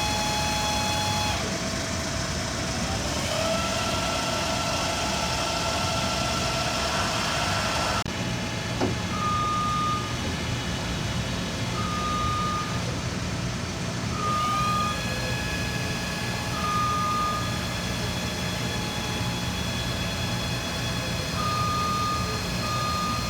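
The electric drives of a 1995 Giddings & Lewis G50T CNC horizontal boring mill running with a steady whine, its pitch shifting several times and gliding up partway through as the machine's speed changes. A short high beep repeats several times in the second half, with a single click near the middle.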